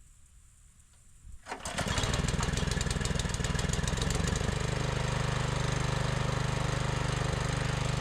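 Small gasoline engine of a garden tiller starting up about a second and a half in, then running with a rapid, even firing beat that settles to a steady pitch.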